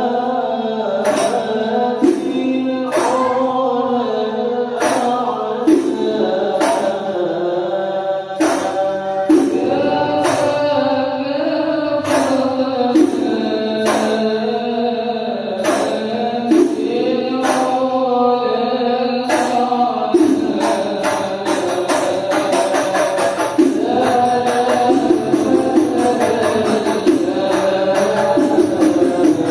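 Shalawat, an Islamic devotional song, sung with rebana frame drums beating a steady pattern. The drum strokes grow quicker and denser about two-thirds of the way through.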